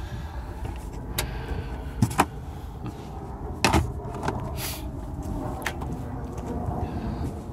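Scattered knocks and clicks as the loose carpet, hardboard and trim panels in a 1981 Datsun 280ZX's hatch area are handled and shifted, over a low steady rumble.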